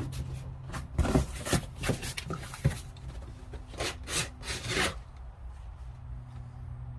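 Tool packaging being handled and rubbed: a run of scraping, rustling strokes with a few sharp clicks over about four seconds, then it goes quiet.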